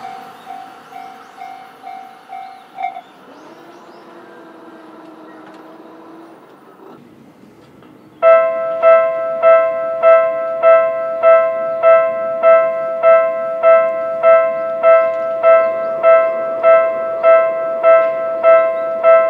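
Japanese railway crossing warning bells. The first electronic bell is still ringing after the train has passed and stops about 3 seconds in. About 8 seconds in, another crossing's electronic warning bell starts up: a loud, steady ding about every 0.6 seconds, the alarm for an approaching train as the barrier lowers.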